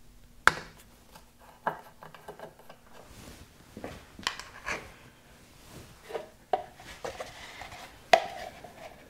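Sharp knocks and clinks of a spanner on the motorcycle's oil-tank fittings, then the clatter of a plastic drain funnel being handled. The loudest knock comes about half a second in, and another near the end rings briefly.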